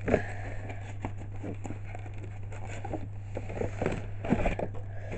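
Hands handling a model railway box and its contents: scattered small clicks, scrapes and rustles of cardboard and packaging, over a steady low hum.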